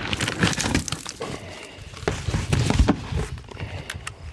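Plastic wrapping and cardboard packaging rustling and crinkling as they are handled, with a few knocks against the box.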